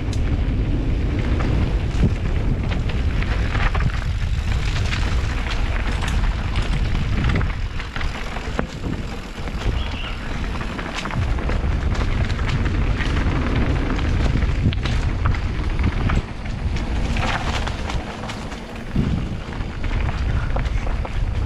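Mountain bike riding down a rough dirt trail: wind buffeting the microphone with a steady low rumble, and many quick clicks and rattles from the bike going over bumps.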